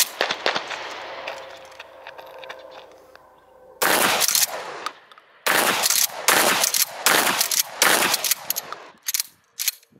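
Remington 870 Marine Magnum pump-action 12-gauge shotgun firing 3-inch magnum slugs: loud shots, one about four seconds in and a quick string of them in the second half, each trailing off in a fading echo.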